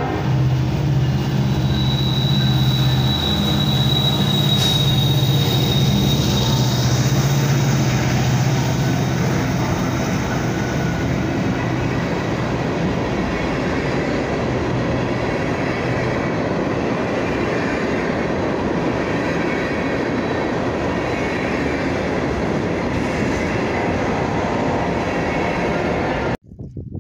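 Freight train passing close by, led by Union Pacific diesel locomotives whose engines drone over the first several seconds. A high steady wheel squeal rings out from about two seconds in for several seconds, then the steady rumble and clatter of open-top hopper cars rolling past carries on until the sound cuts off abruptly near the end.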